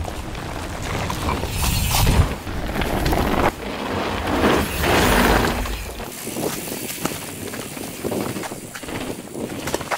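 Downhill mountain bike ridden over a dirt trail: tyres rushing and skidding through loose dirt and gravel, with the bike rattling. Two loud swells of tyre noise come about two seconds in and around five seconds, then quieter rattling and ticking, such as a coasting freehub's clicking.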